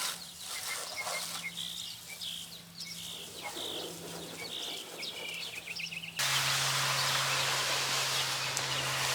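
Small birds chirping over a faint steady hum. About six seconds in, a louder steady hiss starts abruptly and runs on.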